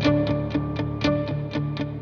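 Background music: a steady run of plucked notes about four a second over sustained low notes.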